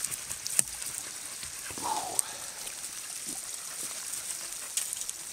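Steady rush of running water from a nearby stream, with a few sharp clicks and snaps and a brief whine a little under two seconds in.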